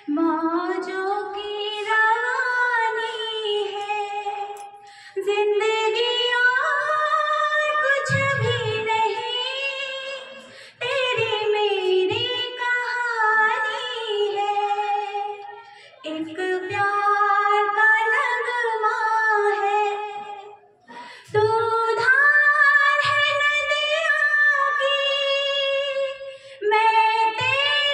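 A woman singing unaccompanied into a handheld microphone, holding long, gliding notes in several phrases with short pauses between them.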